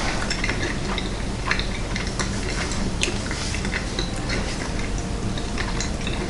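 A person chewing a mouthful of hot chicken pot pie, with scattered small clicks and one sharper click about halfway through, over a steady low hum.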